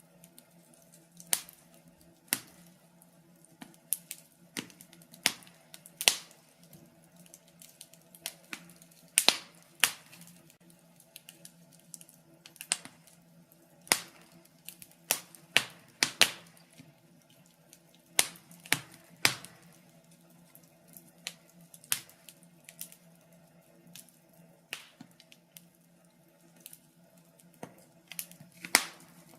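Wood fire crackling in a fireplace: irregular sharp pops and snaps, about one or two a second, some much louder than others.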